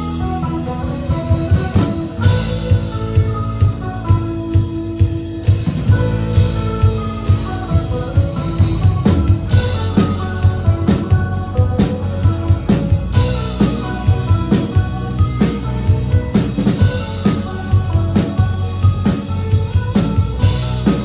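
Live indie rock band playing an instrumental passage: two electric guitars and an electric bass over a drum kit keeping a steady beat.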